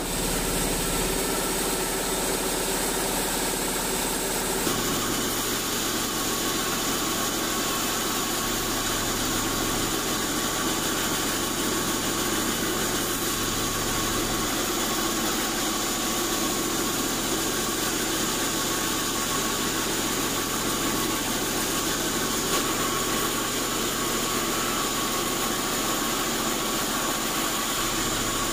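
Vertical band saw running and ripping lengthwise through an old acacia log: a steady mechanical drone with a faint whine. The tone shifts suddenly about five seconds in.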